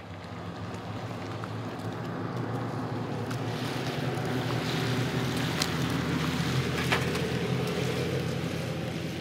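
Pickup truck driving slowly past on wet pavement: a steady engine hum with tyre hiss, growing louder toward the middle and easing slightly near the end. A few sharp clicks come in the middle.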